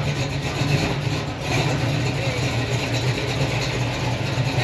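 A car engine idling with a steady low rumble.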